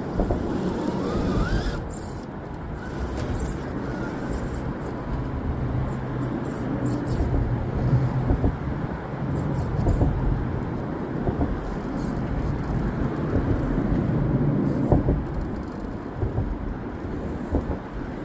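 RC rock crawler's electric motor and geared drivetrain whirring, the pitch shifting with the throttle as it turns and climbs. Its tires and chassis knock and scrape against rock.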